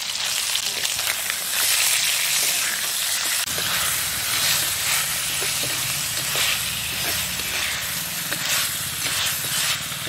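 Turmeric-marinated chicken pieces sizzling steadily in hot oil in a black cooking pot. A perforated metal ladle turns the pieces, with short scrapes against the pot.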